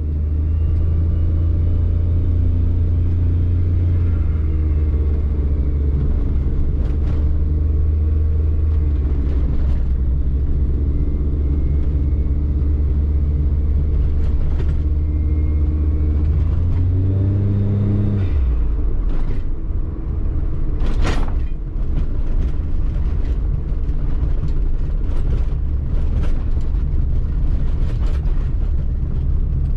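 Car engine and road noise during a steady drive, heard from inside the cabin. About seventeen seconds in, the engine note rises briefly, then drops away, and a single sharp knock follows a few seconds later.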